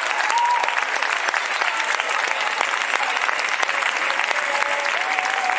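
Audience applauding steadily, dense clapping from a seated crowd.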